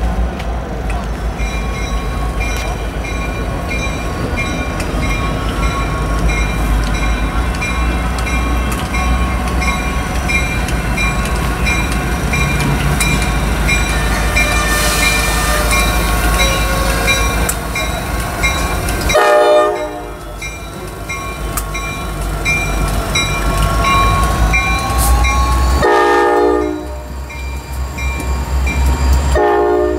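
Several EMD SD60 diesel locomotives with 16-cylinder 710 engines pass close by, with a steady low engine rumble and a bell ringing evenly about twice a second. The multi-note air horn sounds a short blast about two-thirds of the way through, another about 26 seconds in, and a third that begins just before the end.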